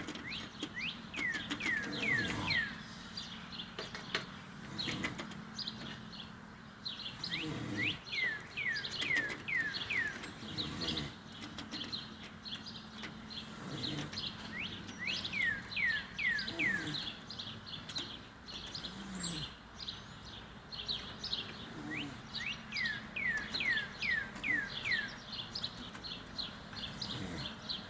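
A man snoring in sleep, a low breath sound swelling about every three seconds. A bird sings over it, repeating a phrase of four to six quick falling whistles every seven seconds or so.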